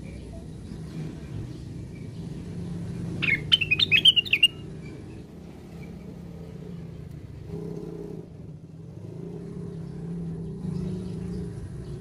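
Caged cucak wilis, a bulbul, giving a quick string of loud chirping notes lasting about a second, a few seconds in, with a few faint notes elsewhere. A steady low rumble runs underneath.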